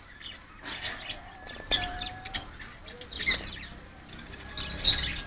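A flock of budgerigars chirping and chattering, a steady stream of short high chirps with a few brief whistled notes mixed in.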